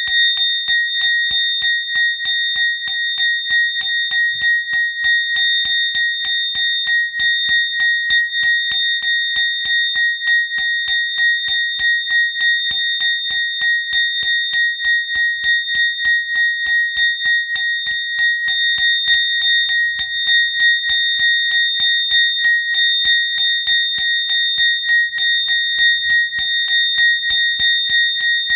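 A small bell rung rapidly and without a break, several strikes a second, its high ringing tone kept going by each new strike.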